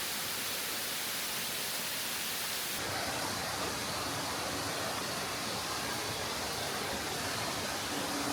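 Steady rushing of a waterfall, with an abrupt change in its tone about three seconds in.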